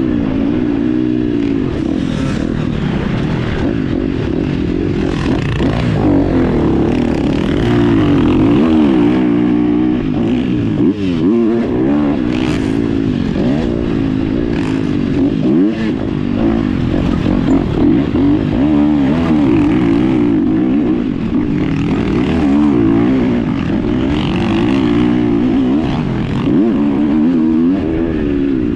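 Dirt bike engine revving up and down again and again through the gears as it is ridden round a track, heard from on the bike.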